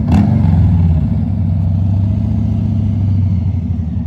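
A vehicle engine idling with a steady low hum, after a short knock right at the start.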